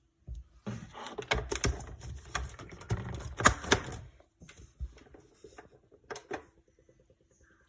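Clattering and clicking of objects being handled: a busy run of small knocks and rattles for about four seconds, then a few separate knocks, over a faint steady hum.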